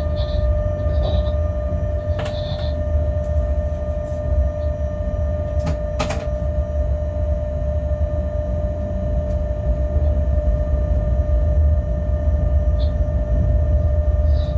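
Inside the cab of a slowly moving freight locomotive: a steady low rumble with a constant hum, and two sharp clicks about two and six seconds in.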